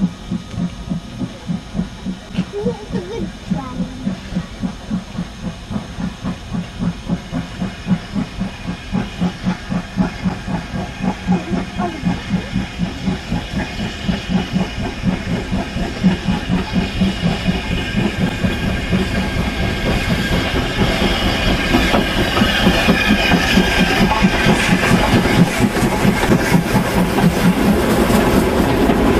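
Steam tank locomotive working a train, its exhaust beating steadily at about two to three chuffs a second. The beats grow louder as it comes nearer, with a rising hiss of steam near the end.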